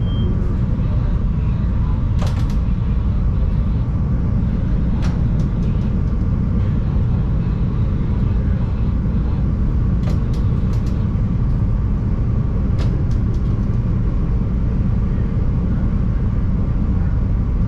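CTA Yellow Line rapid-transit train running along the track, heard from inside the car: a steady low rumble with a faint tone above it and a few scattered sharp clicks.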